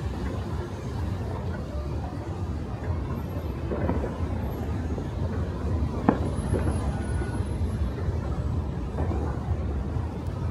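Busy street ambience: a steady low rumble of passing traffic with faint voices, and a single sharp pop about six seconds in.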